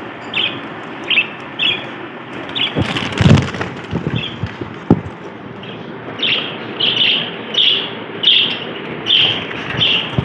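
Budgerigars chirping, short chirps repeated about once or twice a second, fewer in the middle stretch. About three seconds in comes a loud clatter, then a few sharp knocks.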